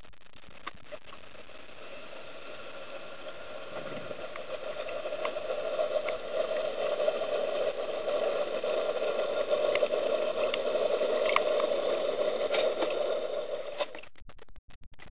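A steady mechanical drone heard underwater, with several tones stacked together. It grows louder from about four seconds in and stops abruptly near the end, with a few faint clicks scattered through it.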